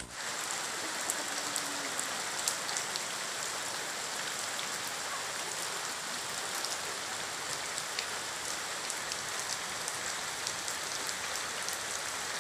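Steady rain falling on waterlogged ground and puddles: an even hiss with many small sharp drop ticks.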